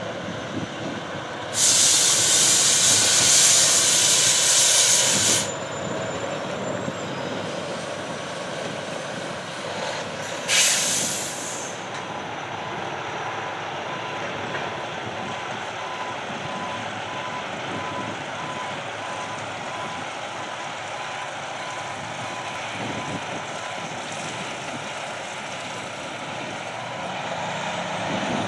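Air brakes on a slow Union Pacific work train venting in two loud hisses: a long one of about four seconds near the start, and a short one about ten seconds in. Under and after them runs the steady low rumble of the moving train.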